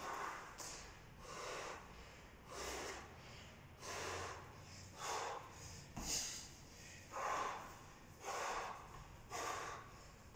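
A man breathing hard in heavy gasps about once a second, winded from wall walks deep into a long workout. A single thud comes about six seconds in.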